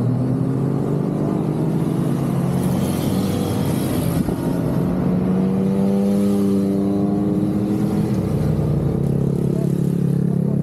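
A steady stream of motorcycles riding past, several engines running at once, their notes rising and falling as bikes go by.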